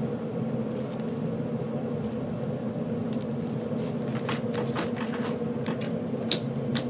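Slime packed with tiny foam beads being stretched and squished by hand, crackling, with a quick run of sharp pops and clicks in the second half. A steady low hum runs underneath.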